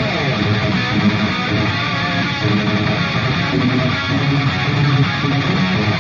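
Intro music: guitar-driven rock with strummed electric guitar and bass, starting abruptly.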